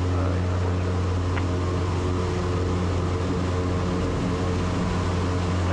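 Super Decathlon's four-cylinder Lycoming engine and propeller running steadily at takeoff power, an even low drone heard from inside the cockpit.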